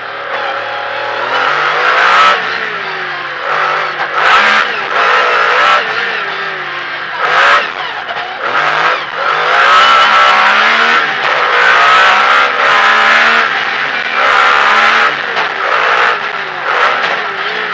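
Metro 6R4 rally car's V6 engine heard from inside the car, revving hard: the pitch climbs and drops again and again as it is driven through the gears and lifted for corners.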